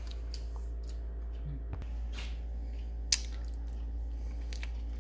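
Small handling sounds: soft squishing and scattered light clicks, with one sharp click about three seconds in, over a steady low hum.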